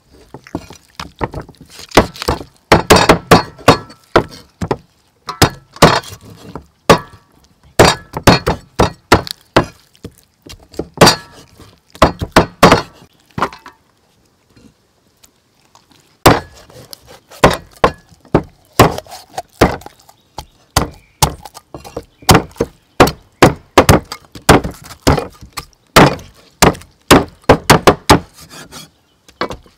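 Cleaver chopping raw chicken on a wooden chopping block: repeated sharp chops in quick, irregular runs, with a pause of about two seconds a little before the middle.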